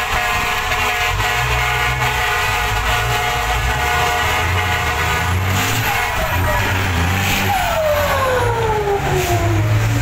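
Ten-wheel diesel trucks running and revving hard as they pull away, a deep engine rumble throughout with black exhaust smoke from one truck. A steady high tone sounds through the first half, then several whines each fall in pitch over a second or two.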